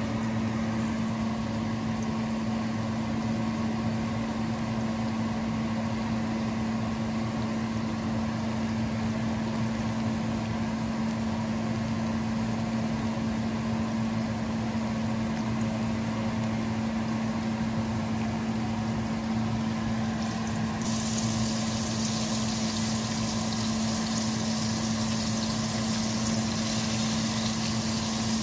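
A steady machine hum runs throughout. About three-quarters of the way through, a loud, steady sizzling hiss starts up as food goes into hot frying oil.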